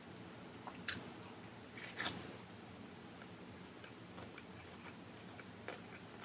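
Soft mouth sounds of a child chewing a piece of sushi roll, with two brief louder clicks about one and two seconds in.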